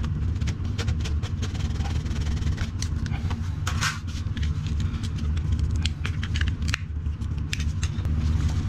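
A blade slicing and prying at the lip of an old glued pipe fitting in a toilet's sewer outlet: irregular small clicks and scrapes over a steady low hum.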